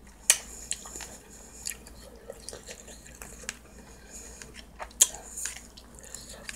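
Close-up eating sounds: chewing and mouth noises, with sharp clicks of a metal spoon against a plastic food tray, two of them loud, near the start and about five seconds in.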